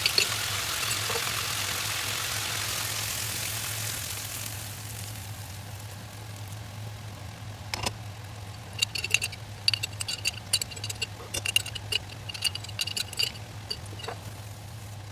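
Cooking on the stove: a hiss of sizzling that fades over the first few seconds, then a spoon clinking and scraping against the pan in quick, irregular ringing taps as the sauce is stirred, over a steady low hum.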